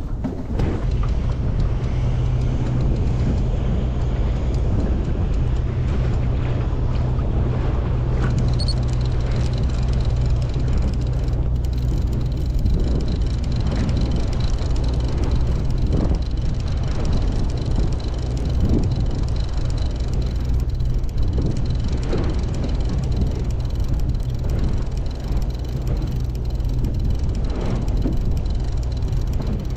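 Boat engine running steadily: a low, even drone with a noisy wash over it.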